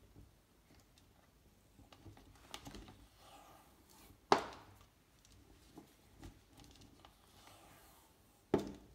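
Tape being pulled from the roll and wrapped around the joined necks of two plastic bottles: soft rustling and small clicks, with two sharp crackles, one about four seconds in and one near the end.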